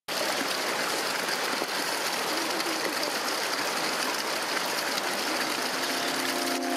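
Steady rushing of flowing water. Music with held notes fades in about five seconds in.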